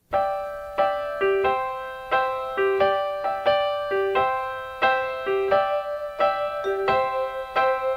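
Background music: a slow solo keyboard melody on piano, single notes struck about twice a second and left to fade, entering right after a brief cut to silence.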